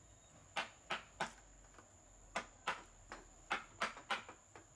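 Mallet striking a wood-carving chisel as it cuts into a solid wood block: sharp taps, a quick run of three, a pause of about a second, then a longer run of taps. A thin steady high-pitched tone is present throughout.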